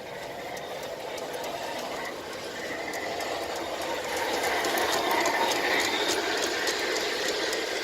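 G-scale Bachmann model locomotive running on the track: a steady whir of motor and gears with a run of small clicks, growing louder and loudest about two-thirds of the way in.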